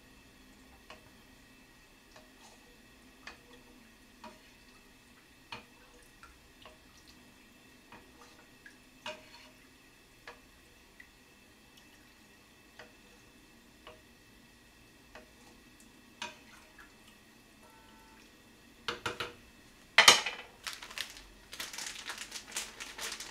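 Wooden spoon stirring a pot of stew broth, with soft knocks against the pot about once a second; the liquid sauce is stirred so it won't settle and burn on the bottom. Near the end, loud crinkling of a plastic food package being handled.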